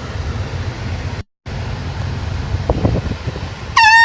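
Handheld air horn blasting near the end: one loud, steady, high note that dips briefly in pitch as it starts. Before it there is a steady low rumble of wind on the microphone, broken by a short moment of total silence about a second in.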